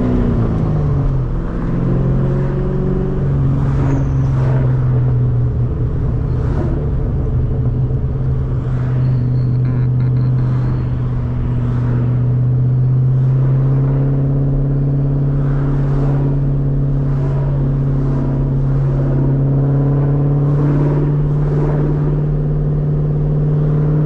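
2003 Mustang SVT Cobra's supercharged 4.6-litre V8 under way on the road; its note falls in pitch in the first second or so, then holds a steady drone at cruising speed.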